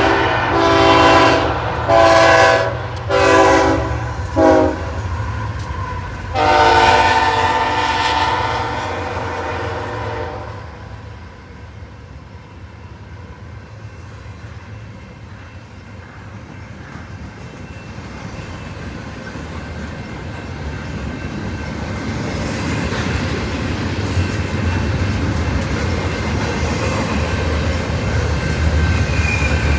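Locomotive air horn with several chime tones sounding five short blasts, then one long blast of about four seconds. After it, the rumble of the moving train grows steadily louder toward the end.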